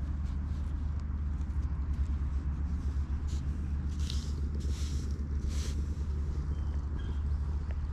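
A steady low rumble, with several short brushing sounds around the middle as a hand strokes a black cat's fur and the cat rubs its head against a trouser leg.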